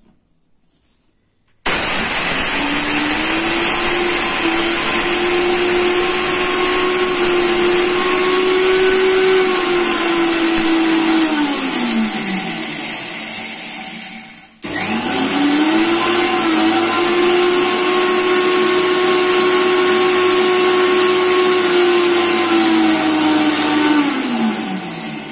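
Electric mixer-grinder motor grinding dry sago pearls (sabudana) into powder. It runs in two long bursts, a steady high hum that starts about two seconds in, cuts out briefly halfway, then starts again. The pitch sinks near the end of each run.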